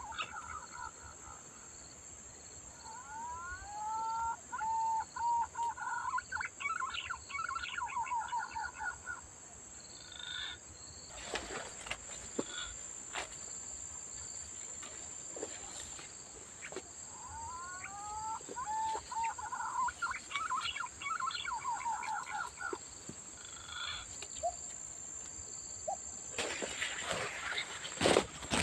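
Green pigeon (punai) whistling song: two long phrases of fluting notes that glide up and then fall away, one a few seconds in and another about halfway through. A steady high insect drone runs underneath, with some rustling and knocks near the end.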